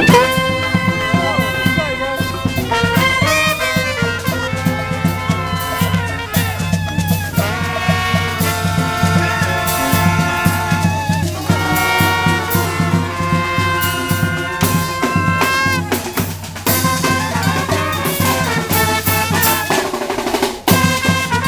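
Street brass band playing: trumpets and trombones holding a tune over a steady drum beat. The drums drop out for a moment near the end.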